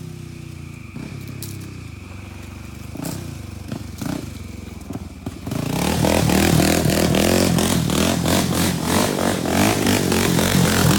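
Honda 400EX ATV's single-cylinder four-stroke engine running at low speed, then a little over halfway through it gets much louder, with a rapid pulsing beat, as it is given more throttle or comes close.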